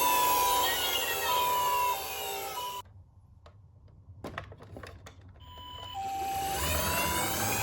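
Toy ambulance minicar's electronic two-tone siren, alternating a high and a low note at about two-thirds of a second each in the Japanese ambulance pattern. It cuts off suddenly about three seconds in, a few faint clicks follow, and the siren starts again near the end.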